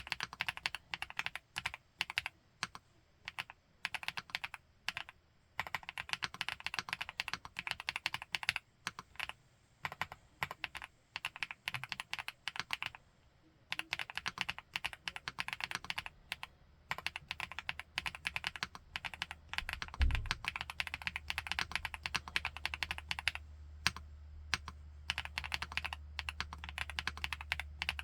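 Typing on an FL-ESPORTS Geo75 mechanical keyboard with Kailh x Funkeys BCP switches: fast runs of keystrokes in bursts of a few seconds, with short pauses between them. About two-thirds of the way through there is a thump, after which a steady low hum sits under the typing.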